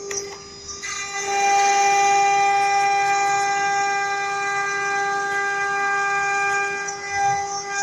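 CNC router spindle running with a steady high-pitched whine, louder from about a second in as the bit cuts into the sheet.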